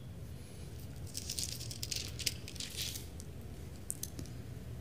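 Thin Bible pages rustling and crinkling as they are leafed through, for about two seconds, with a light tick near the end, over a faint low hum.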